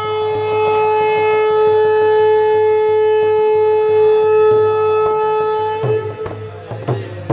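Conch shell (shankh) blown in one long, steady, loud note, the traditional call that opens a Hindu arti. The note ends about six seconds in, and a run of sharp strikes starts.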